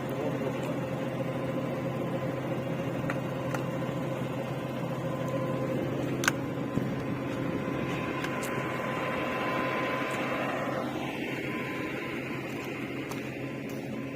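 Truck-mounted borewell drilling rig's engine running steadily, with a sharp knock about six seconds in.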